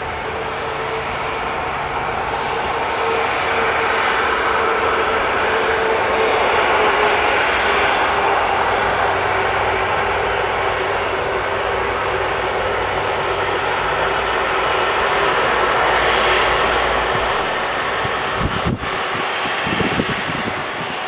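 Airbus A330 twin jet engines at taxi power, a steady jet rush with a held whine that fades after several seconds, growing a little louder over the first few seconds as the airliner comes closer. A few low thumps near the end.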